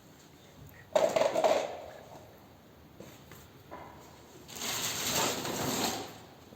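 Workshop tool noise as work starts on a motorcycle exhaust: a sudden, loud metallic burst about a second in, then a longer rasping noise of about a second and a half from around four and a half seconds.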